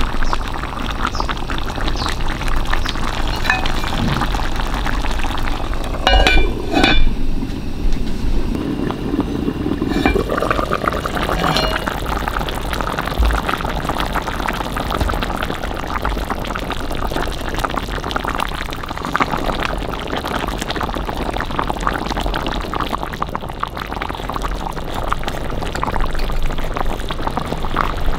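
Tomato sauce simmering and bubbling in a cast-iron pot around a whole stuffed cabbage. A few metal clinks of utensils against the pot come about six to seven seconds in and again around ten seconds.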